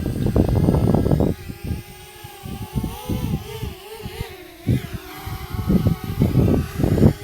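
DJI Mavic Mini drone's propellers whining, the pitch wavering up and down as it manoeuvres. Loud low rumbles come in at the start and again near the end.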